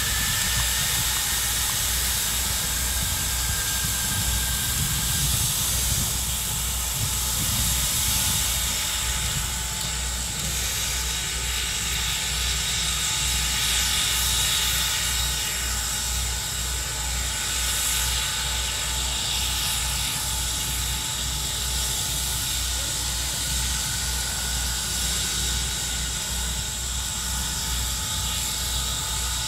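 Steam locomotive standing with steam hissing steadily over a low rumble, with no exhaust beats; it is not working hard.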